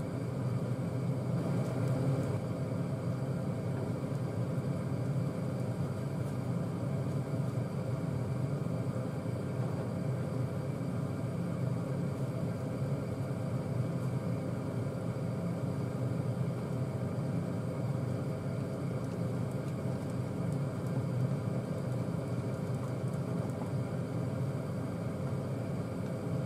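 A steady low drone.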